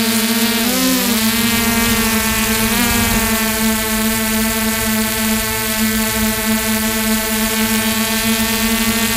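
Electric RC helicopter's motor and rotors heard from the onboard camera: a steady hum whose pitch briefly wavers about a second in and again near three seconds.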